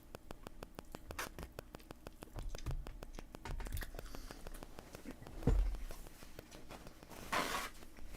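Close-up mouth sounds of someone chewing a sauced chicken wing: rapid small clicks and crackles, with a dull thump about five and a half seconds in and a short rustling burst near the end.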